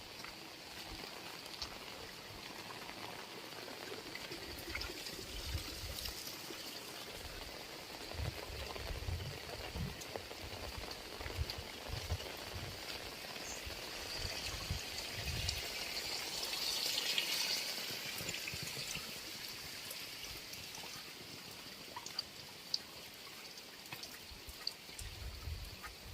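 Heavy rain falling steadily, with water pouring and trickling; the rush swells for a couple of seconds about two thirds of the way through. Irregular low thuds come and go underneath.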